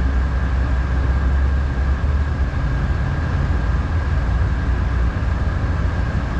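Tugboat diesel engine running steadily under load, a constant low drone with a faint steady high whine over it.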